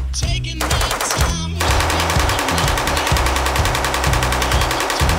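Machine gun firing fully automatic: a short burst about half a second in, then a long unbroken burst of rapid, evenly spaced shots from about a second and a half in. Background music with a steady bass line runs underneath.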